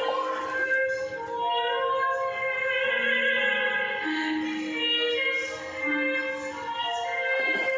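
Music with a high female singing voice in an operatic style, held notes stepping from one pitch to the next.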